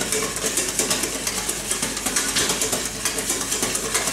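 Wire balloon whisk beating eggs and sugar in a stainless steel bowl: a fast, steady run of scraping, clinking strokes against the metal, several a second.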